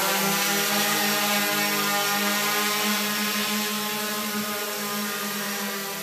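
Large multirotor drone's propellers and motors giving a steady, many-toned buzz while it hovers, growing fainter through the second half as it flies away.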